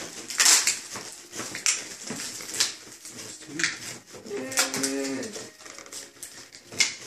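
A short wordless moaning call, falling in pitch, about halfway through, among scattered short crackles and rustles.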